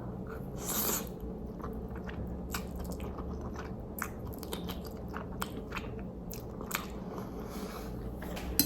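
A person chewing a mouthful of Korean instant black bean noodles close to the microphone, with many small wet mouth clicks and smacks and a brief rush of noise just under a second in.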